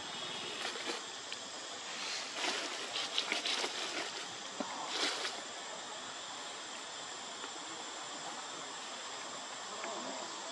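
Steady outdoor drone of insects with a thin, high, unbroken whine, and a cluster of short scratchy rustles about two to five seconds in.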